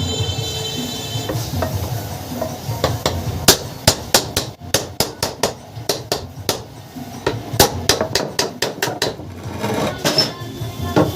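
A series of sharp metallic hammer taps, about three a second and unevenly spaced, starting about three seconds in and stopping shortly before the end, while reassembling a cooler motor after a bearing change.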